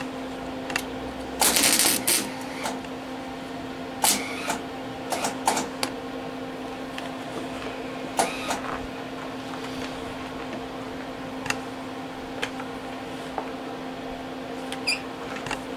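Scattered clicks, knocks and short rattles of gear being handled, over a steady low hum, with a denser rattling burst about a second and a half in.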